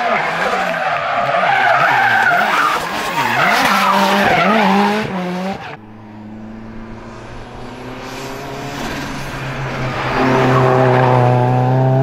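Opel race car's engine revving hard with tyres squealing through a tight bend. It cuts off suddenly about six seconds in, then the engine pulls in one gear, its note rising steadily and growing louder as the car approaches.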